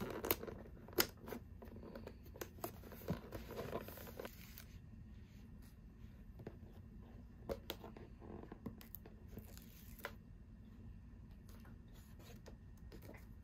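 Paper and cardboard being handled: rustling and scraping as a paper seal sticker is pressed onto a cardboard coin bank for the first four seconds or so, then a few scattered light taps and clicks.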